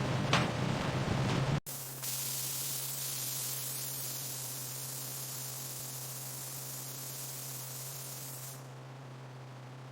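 Knocks and a low rumble that cut off abruptly after about a second and a half. Then a steady hiss sets in over a low, even hum; the hiss fades out near the end while the hum carries on.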